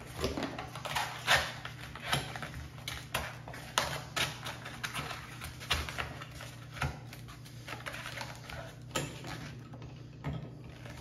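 Cardboard being folded and pressed around the jaws of a metal bench vise, with irregular rustling, scraping and small knocks.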